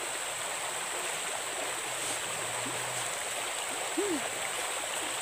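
Steady rush of a shallow stream flowing, with a thin, steady high-pitched whine above it.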